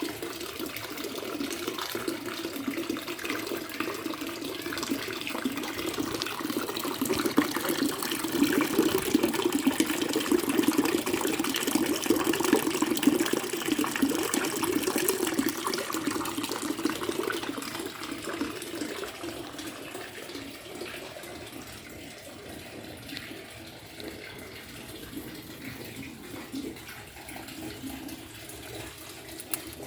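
Trickling, splashing water running steadily, somewhat louder in the first half and softer toward the end.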